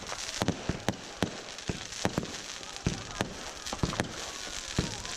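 Fireworks going off: a string of sharp bangs and pops, roughly two or three a second at uneven spacing, over a steady crackle, with a faint whistle near the end.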